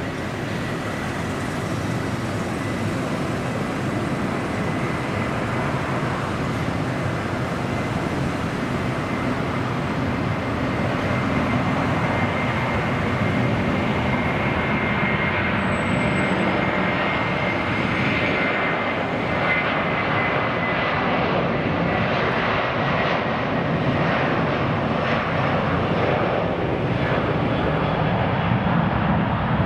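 Airbus A330-200's twin turbofan engines at takeoff thrust during the takeoff roll: a steady jet rumble with a high whine held near one pitch, growing gradually louder.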